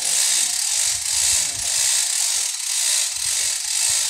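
Mikasa engine-driven piling machine running under load: a steady mechanical grinding hiss that swells and eases in a slow, regular rhythm, with scattered low knocks.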